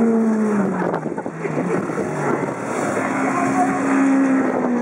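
Small engine of a motor trike running at low speed, its note dropping about a second in and rising again about three seconds in as the throttle is eased off and opened.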